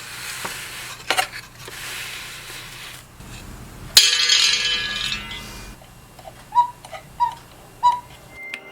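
Light clicks and a knock, then a sharp metallic strike about four seconds in that rings on for nearly two seconds, followed by three short high tones evenly spaced.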